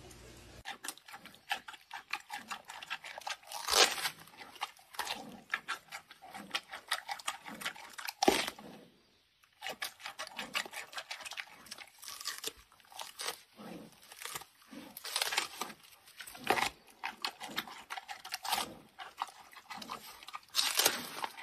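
Giant panda biting and chewing bamboo shoots: a rapid, irregular run of crunching and tearing bites, broken by a brief pause about nine seconds in.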